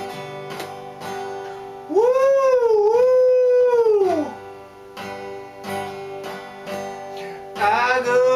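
Acoustic guitar strumming, with a man's voice giving a sung "woo-wooooo" that imitates a train whistle about two seconds in: one long loud call that rises, dips and falls away. Near the end he starts singing again over the guitar.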